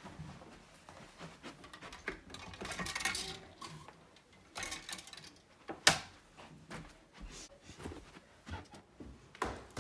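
Scattered rustles, clicks and knocks of someone rummaging at a dresser and a closet, with one sharp knock about six seconds in.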